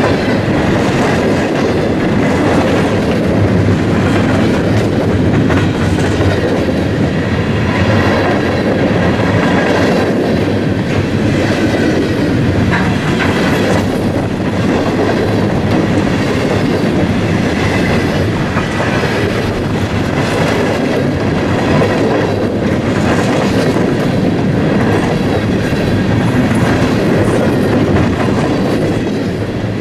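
Freight train rolling past steadily, its cars' steel wheels clacking over rail joints in a continuous loud rumble.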